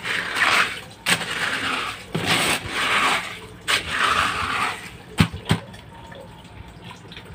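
A stick stirring wet crushed gold ore in a tarp-lined leaching tub: four wet, gritty strokes through the slurry, then two sharp knocks about five seconds in, with the stirring quieter after.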